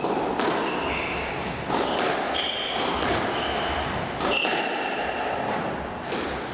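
Squash rally: sharp racket strikes and the ball hitting the walls every second or so, with short high squeaks of court shoes on the wooden floor between the shots.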